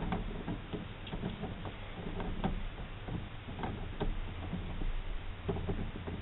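Light, irregular clicks and taps of small metal and plastic parts being handled and seated on the top of a GM steering column, over a low steady hum.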